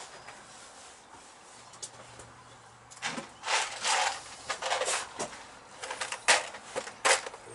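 Small metal tools and parts handled at the workbench: a quick, irregular run of sharp clicks and scrapes starting about three seconds in, as a spanner works on a brake caliper's bleed nipple.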